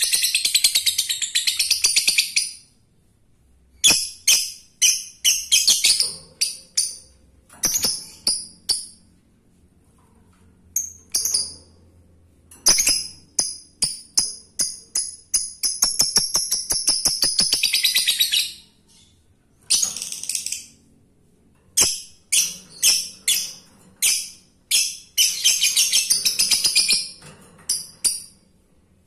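Male lovebird chattering in shrill runs of rapid strokes with short silences between, including one long unbroken chattering trill (the 'ngekek') of about six seconds in the middle; a male's call to a female.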